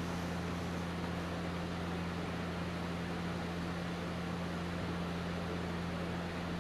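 Steady machine hum: a constant low drone with an even hiss over it, unchanging throughout.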